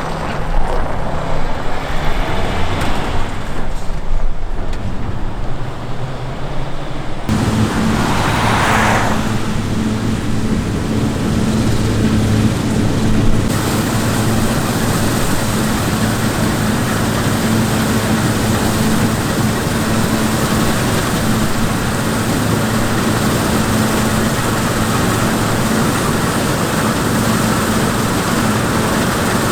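Heavy diesel harvest machinery running steadily with a constant engine hum, the sound changing abruptly about seven seconds in and again around thirteen seconds.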